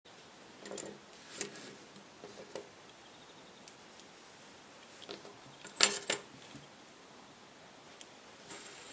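Drawing tools handled on a desk: a steel ruler and a metal drawing compass picked up and set down, making a few scattered clicks and taps. The loudest is a sharp clack about six seconds in.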